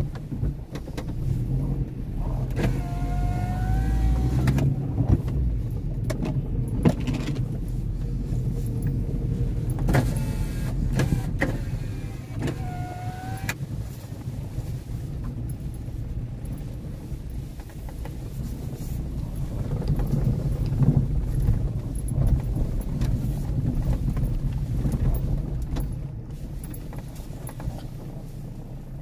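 A car driving, heard from inside the cabin: a steady low rumble of road and engine noise with a few knocks and two short squeaky whines, about three and about thirteen seconds in. The rumble drops quieter near the end as the car comes to a stop.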